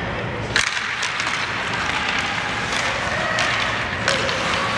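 Ice hockey rink noise: a steady wash of skates scraping the ice and arena hum, broken by a few sharp clacks of sticks and puck, the loudest about half a second in.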